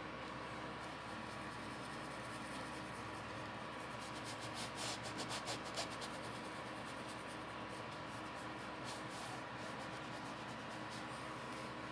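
Flat paintbrush brushing oil paint onto fabric, with a quick run of short strokes about five a second around four to six seconds in and a few more later, over a faint steady hum.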